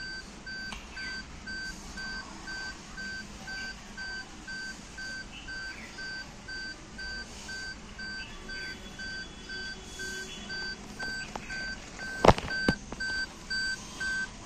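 Car cabin warning chime beeping steadily at one pitch, about two beeps a second, while the ignition is on. Two sharp clicks about twelve seconds in.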